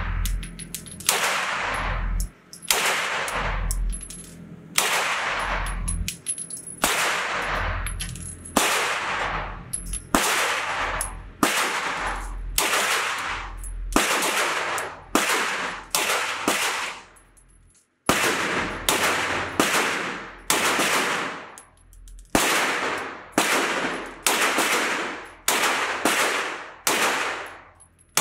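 Beretta CX4 Storm 9mm direct-blowback carbine firing steady single shots, roughly one a second, each sharp report ringing out in the echo of an indoor range. There is a brief break just past halfway.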